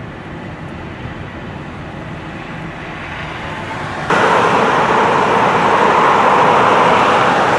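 Steady road and tyre noise of a car driving on a freeway, heard from inside the car and slowly growing louder. About four seconds in it gives way suddenly to a louder steady noise from road-work equipment at a striping site.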